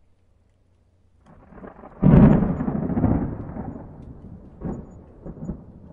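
Title-sequence explosion sound effect: a low rumble swells up, then a sudden deep boom about two seconds in that rumbles away slowly, with a few small crackles near the end.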